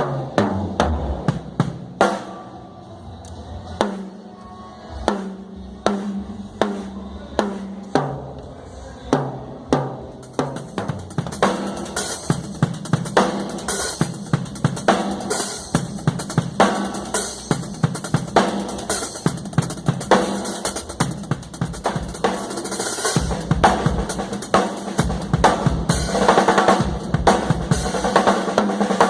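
Acoustic drum kit played during a sound check: separate kick, snare and tom hits at first, building after about ten seconds into a steady groove with cymbals, and getting louder and fuller near the end.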